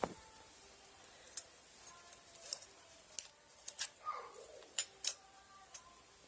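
A series of short, sharp clicks and snaps at irregular intervals, about ten in all, the loudest about five seconds in.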